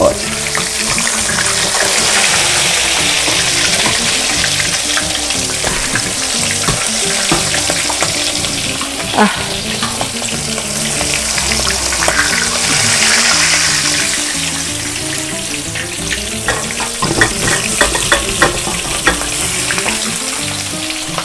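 Breaded beef patties sizzling steadily as they shallow-fry in hot oil in a pan, the hiss swelling twice. Light clicks of metal forks against the pan, several in quick succession near the end.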